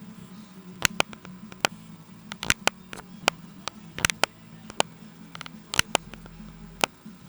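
Computer keyboard keys clicking at an irregular pace, some eighteen sharp keystrokes, over a steady low hum.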